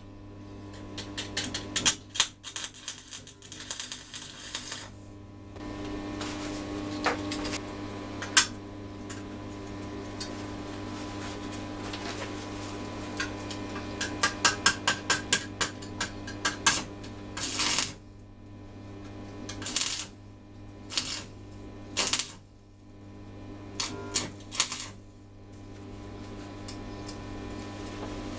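Stick (arc) welding on small steel parts: the electrode crackles in stretches and short bursts of arc, with quick metallic taps and clicks between them. In the second half the welds come as separate brief bursts a second or two apart.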